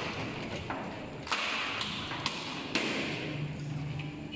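Several light knocks and taps from hands on an aluminium-framed glass swing door as it is pressed and handled, over a steady low hum.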